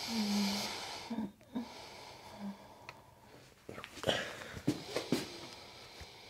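A patient's long, heavy exhale with a brief low hum at its start, breathing out as deep pressure is worked into a knot in her upper back muscles; a few shorter, sharper breaths follow about four to five seconds in.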